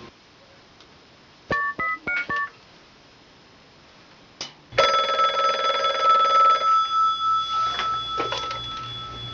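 A quick run of about five short two-tone keypad beeps as a number is dialled on a phone, then, about halfway through, a telephone starts ringing steadily and keeps ringing.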